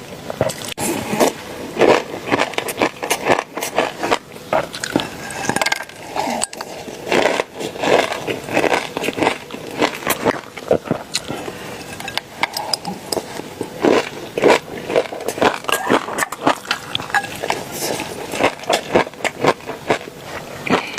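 Close-up eating sounds: crunchy food being bitten and chewed, a dense, irregular run of crackles and crunches with some scraping.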